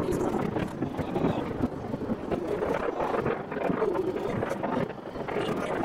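Fireworks bursting and crackling in a continuous jumble of pops and rumbles, with wind on the microphone.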